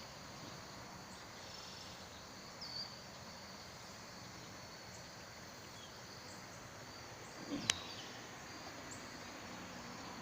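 Faint outdoor ambience with insects trilling steadily at a high pitch, a few short high chirps about a third of the way in, and one sharp click near the end.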